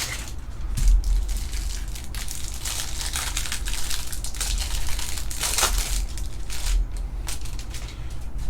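A cardboard hanger box of trading cards being opened and its plastic wrapper crinkled and torn: an irregular run of crinkling and crackling rustles, with a low steady hum underneath.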